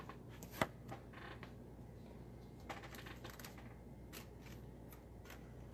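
Faint, scattered light taps and clicks of trading cards being handled and set down on a table, the sharpest about half a second in, with a few more in the middle and near the end.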